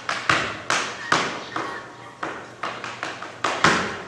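Tap shoes striking a stage floor in an uneven run of sharp taps and stamps, about two to three a second, each ringing briefly in the hall. The loudest stamp comes a little past three and a half seconds in.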